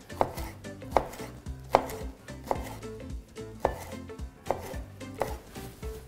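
Kitchen knife cutting pineapple into cubes on a wooden cutting board: sharp knocks of the blade on the board, about one a second, unevenly spaced.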